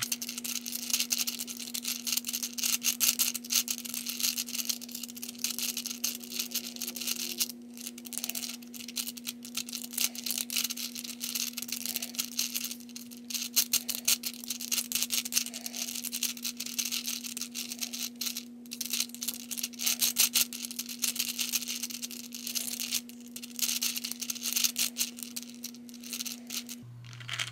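Plastic balls of a Hungarian Rings puzzle clicking and rattling in rapid runs as the rings are rotated by hand, over a steady low hum.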